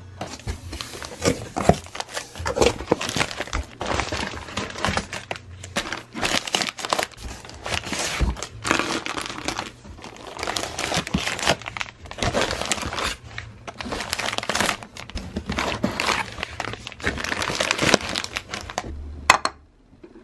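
Scissors slicing the packing tape on a cardboard box, then plastic-wrapped packs of baby wipes crinkling and rustling against the cardboard as they are handled, in irregular bursts. A sharp click sounds near the end.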